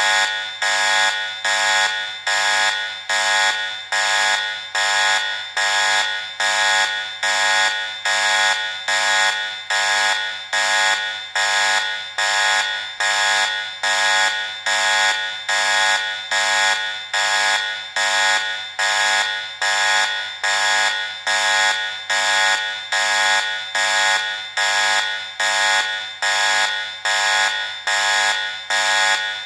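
Electronic alarm buzzer sounding over and over, a harsh, high buzz repeating about three times every two seconds without a break in the pattern.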